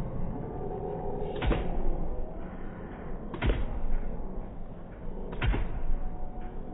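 Live rock band playing a sparse passage: three heavy hits about two seconds apart over low sustained notes.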